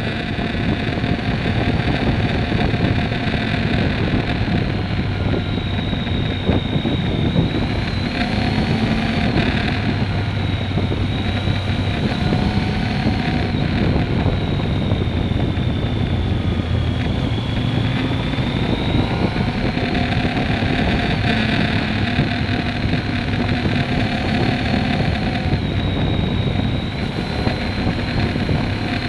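Motorcycle engine heard from on board while riding through curves, its revs rising and falling over a few seconds at a time as the rider works the throttle, with wind rushing over the microphone.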